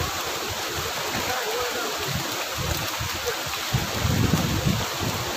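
Steady rush of flowing water, with an uneven low rumble underneath.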